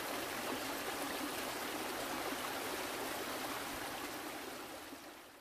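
Running water of a mountain stream over rocks, a steady even rush that fades away near the end.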